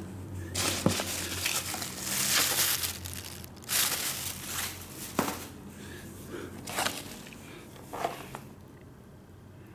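Foam packing peanuts in a cardboard box rustling and crinkling as hands rummage through them, in irregular spells with a few short clicks; the rustling dies down near the end.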